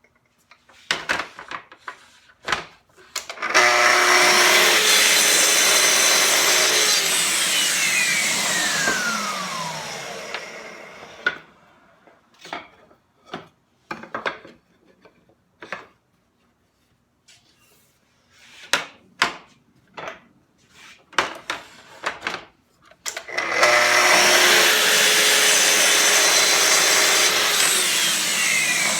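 Festool TS55 plunge-cut track saw making two mitre cuts through wood, each a steady motor whine with cutting noise that then winds down in a falling whine. Between the cuts come sharp knocks and clicks of pieces being handled and set in the jig.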